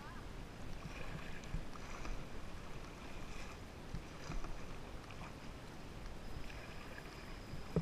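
Kayak paddle strokes splashing faintly and river water running along the hull of a kayak in fast current, a steady low hiss with a few small splashes.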